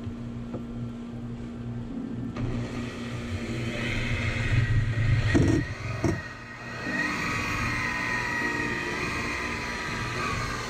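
DeWalt polisher compounding the boat's gel coat, its motor running steadily with a dip about halfway through and a wavering higher whine after it.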